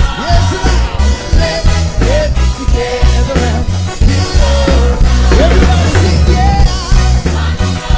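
Live reggae music from a choir with band: a steady, heavy bass beat under a sliding melody line.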